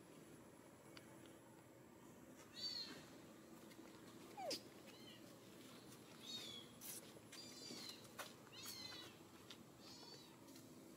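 Infant macaque giving a series of short, high-pitched squeaky cries, each falling in pitch, repeated every second or two, with a few faint clicks between them.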